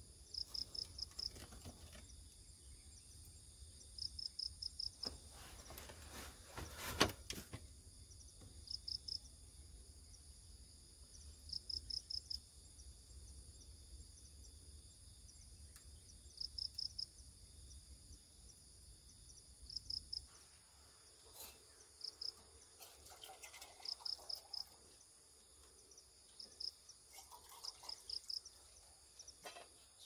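Crickets chirping: short trills of rapid pulses repeated every few seconds over a steady high insect hum. A single knock about seven seconds in.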